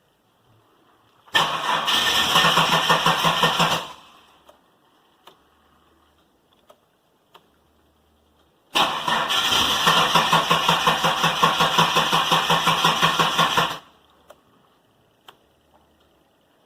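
Holden VS Commodore engine cranked on its starter motor in two attempts, one about two and a half seconds and the next about five seconds long, each a rhythmic chugging that does not catch. It almost wants to start; the owner blames a degraded battery terminal connection.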